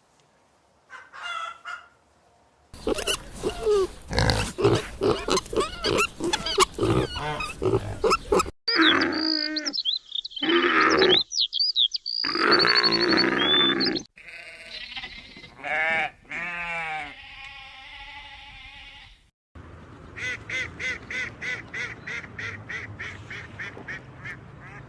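A run of farm animal calls cut one after another. The longest is several seconds of dense pig grunting, followed by high squeals, a few long drawn-out calls, and near the end a regular series of short calls about two a second.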